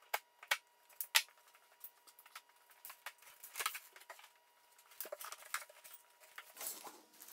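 A utility knife slitting the tape along the seam of a large cardboard box: a string of sharp clicks and scrapes. The cardboard flaps are then swung open, with a stretch of rustling near the end.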